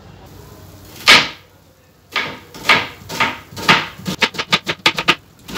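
Knife chopping a red onion on a plastic cutting board. A single loud cut comes about a second in, then strokes about twice a second, quickening into rapid chopping near the end.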